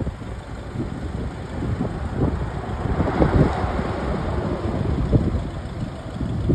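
Iveco Daily 72C18 four-cylinder turbodiesel truck engine running at idle, a rough low rumble that grows louder for a moment about three seconds in, with wind buffeting the microphone.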